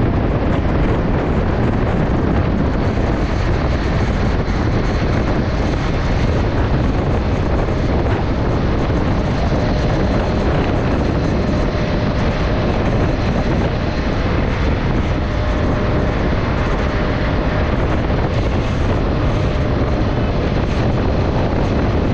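Steady wind rush on the microphone over the 2023 Suzuki Access 125 scooter's single-cylinder engine running flat out at about 100 km/h, its top speed. A faint steady whine comes in about ten seconds in.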